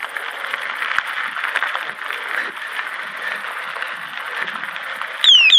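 Mountain bike tyres rolling over a dirt trail with a steady gritty crackle. Near the end a bike bell sounds three quick falling chirps.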